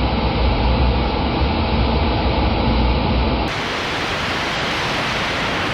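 Steady, dense rush of floodwater with a heavy low rumble, cutting abruptly to a different recording of the same kind of rushing noise about three and a half seconds in.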